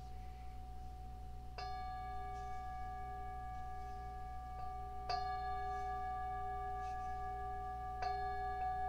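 Singing bowl struck three times, about three seconds apart. Each strike rings on in a long, sustained shimmer of several tones, which marks the close of the Yoga Nidra practice.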